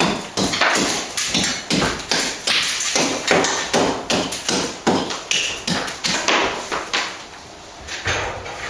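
A hand tool tapping and scraping at old brickwork, about two to three strokes a second, working loose lime mortar out of the joints; the strokes stop about seven seconds in.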